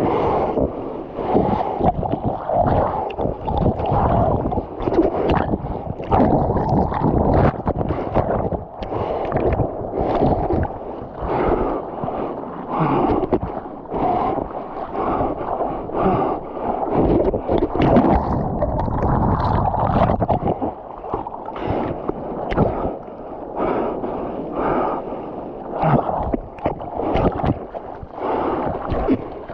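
Sea water splashing and sloshing close to the microphone in choppy, irregular bursts, heard from a surfer out on a longboard.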